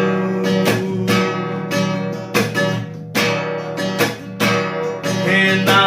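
Acoustic guitar strummed at about two strokes a second, playing the accompaniment of a worship song with no voice over it.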